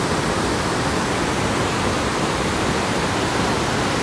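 A large waterfall's falling water: a steady, unbroken rushing noise with no change in level.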